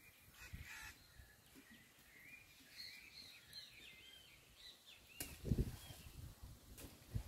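Elephant's trunk working and slapping in a shallow muddy puddle, mixing the dirt into the rainwater: a sharp knock a little after five seconds followed by a dull low thump, and another short thump near the end. Small birds chirp in the background.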